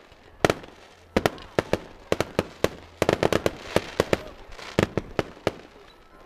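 Fireworks display: a string of sharp bangs from bursting aerial shells, a few every second at uneven spacing, with a rapid cluster about three seconds in followed by a short hissing crackle.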